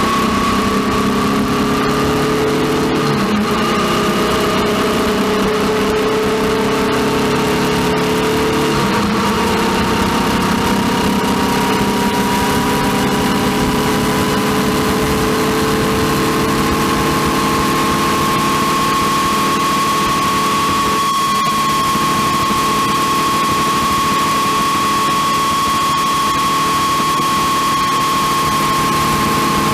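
Honda CB500X motorcycle running, with a steady whine that rises slowly in pitch over the engine sound. This is the noise that appeared after a new chain and sprocket kit was fitted.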